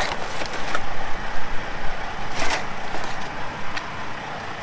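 Small plastic nursery pots of petunias being handled and set back into a plastic flat tray, with a few brief rustles and crinkles, the clearest about two and a half seconds in. A steady outdoor traffic hum runs underneath.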